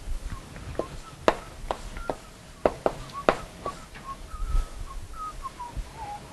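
Chalk writing on a blackboard: a string of sharp taps as the chalk strikes the board, with many short squeaks between the strokes.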